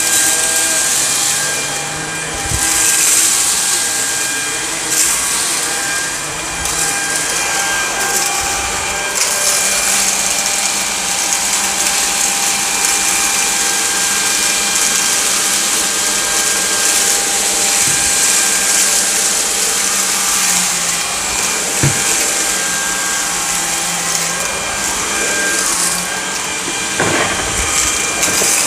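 Samsung Jet VS70 cordless stick vacuum running steadily on medium power, with its brush roll turning on carpet. It makes a strong hiss and a steady whine, with a few sharp clicks here and there.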